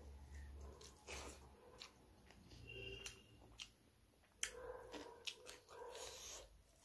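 Quiet close-up eating sounds: chewing, lip smacks and small clicks as rice and curry are eaten by hand from a steel plate. The sharpest click comes about four and a half seconds in.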